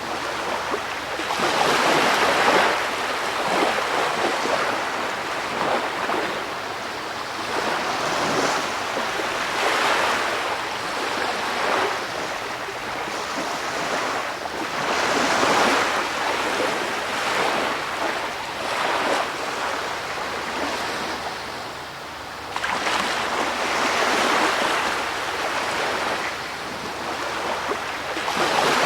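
Ocean waves washing in, a steady rush that swells and falls back every few seconds.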